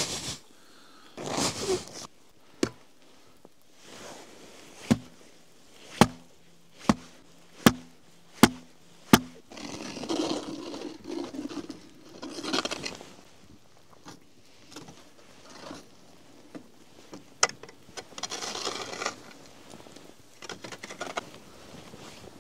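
A row of sharp knocks, several about a second apart, then bursts of scraping.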